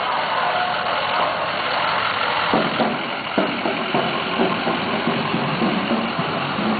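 Engine of a police court-services box truck running as the truck moves slowly past close by; its low engine note grows strong about two and a half seconds in.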